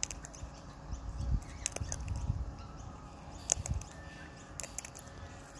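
Sulphur-crested cockatoo cracking sunflower seeds in its beak as it eats from a hand: scattered sharp cracks of husks splitting, over a low rumble.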